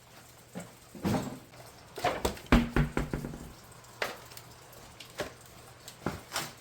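A run of knocks and clanks from tools and wheel parts being handled, with a dense cluster about two to three seconds in.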